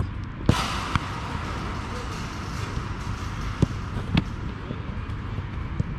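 Sharp thuds of a football being struck: a hard one about half a second in, followed by a hiss, then three or four more ball impacts, over a steady low outdoor rumble.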